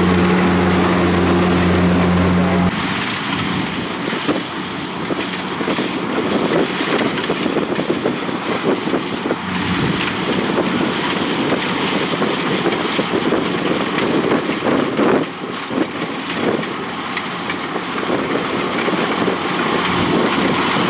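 Kubota rice combine harvester running as it cuts rice: a steady diesel engine hum for the first few seconds. After that comes a rougher, noisier crackling clatter of the machine working through the crop, with the engine tone weaker, and the deeper hum returns near the end.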